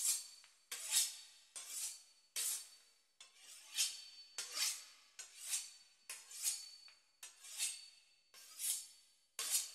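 A knife sawing back and forth through the crisp pastry crust of a beef Wellington: faint rasping strokes, a little over one a second.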